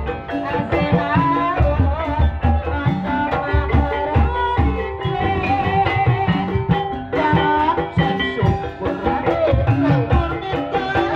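Javanese gamelan accompaniment for an ebeg dance: struck metallophone or bamboo keys play an interlocking melody over kendang drum beats, with a high wavering melody line above.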